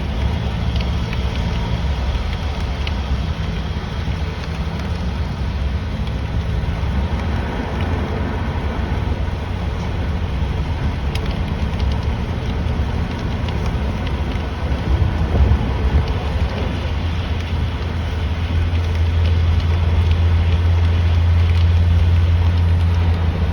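Car driving in the rain: a steady low rumble of engine and tyres under a hiss of rain and wet road. The low rumble swells louder near the end.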